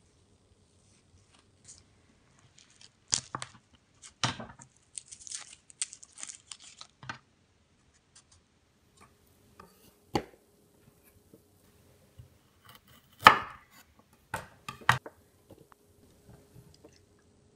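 Kitchen food-prep sounds on a wooden cutting board: scattered knocks and taps of a chef's knife and ingredients, with a stretch of scraping about five seconds in. The loudest knock comes about thirteen seconds in.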